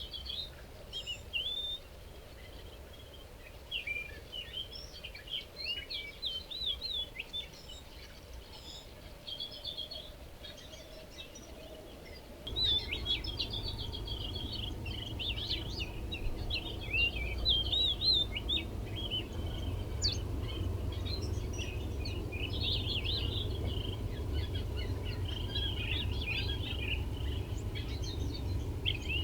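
Many small birds chirping and twittering together, with quick, overlapping rising and falling notes. About twelve seconds in, a steady low background rumble comes in and the chirping grows busier.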